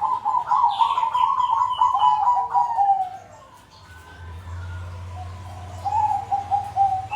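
Perkutut (zebra doves) cooing, several birds calling in strings of quick, rhythmic notes. One long phrase runs through the first three seconds and another starts near the end, with a quieter gap and a steady low hum between.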